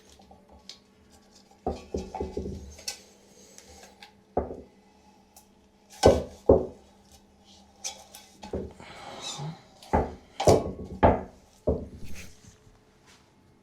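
Hand tools and metal parts clanking and knocking during work on a washing machine's tub suspension while new shock absorbers are fitted: a string of separate sharp knocks, with a brief rubbing scrape near the middle.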